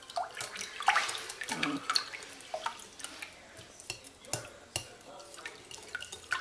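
Wire whisk beating a thin mixture of eggs, oil and milk in a glass bowl: irregular liquid sloshing with quick clicks of the wires against the glass.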